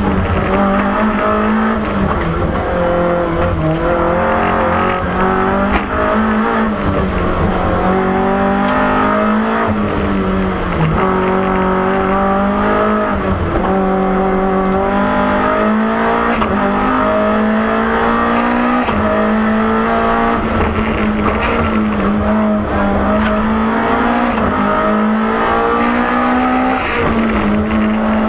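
BMW M3 E30 Group A rally car's four-cylinder engine at full race pace, heard from inside the cabin: it climbs in pitch through each gear and drops back at every shift, again and again.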